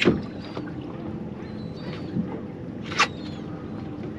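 Boat ambience: a low steady hum from an outboard engine and water noise, with two sharp knocks, one at the start and another about three seconds in, and a few faint high chirps.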